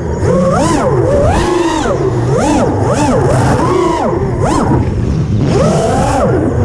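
FPV quadcopter's electric motors and propellers whining, the pitch swooping up and down again and again as the throttle is punched and eased.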